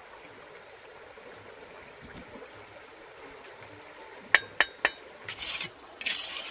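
Steady trickle of running water, broken about four seconds in by three sharp clinks or knocks in quick succession, followed by two short rushes of noise.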